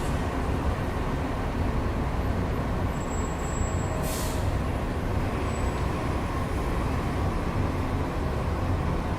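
Steady rumble of city street traffic through an open window, with a short hiss about four seconds in.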